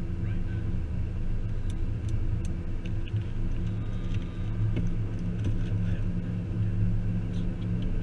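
Car cabin noise while driving: a steady low engine and road rumble, with a few faint light clicks.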